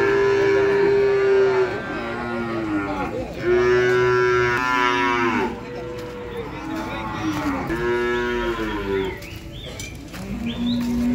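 Cattle mooing over and over, long steady calls following one another, with a lower-pitched call starting near the end.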